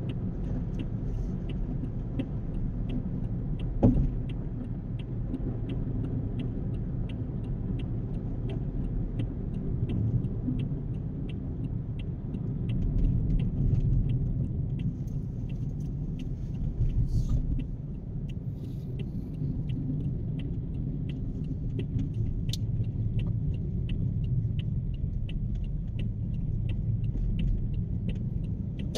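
Steady low road and engine rumble heard inside a car cruising on a highway. A faint, regular ticking runs through it, and there is a single knock about four seconds in.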